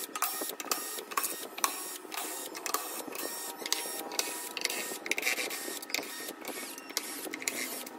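Cordless drill-driver backing out the screws that hold a loudspeaker's horn and woofer, its motor whirring in many short, repeated bursts.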